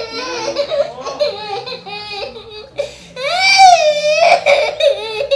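Baby crying in high-pitched wails that rise and fall, the loudest wail about three seconds in.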